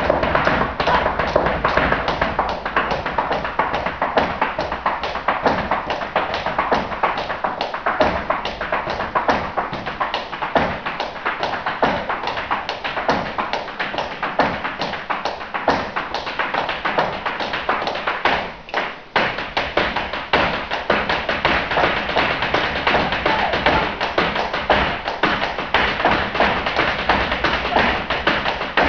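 Flamenco zapateado footwork: a fast, dense run of heel and toe strikes from a dancer's shoes on a wooden stage, with a brief pause about two-thirds of the way through.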